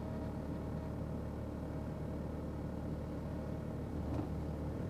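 Steady low engine hum of a BMW-engined Land Rover Defender heard inside the cabin: a low rumble with a few even tones above it.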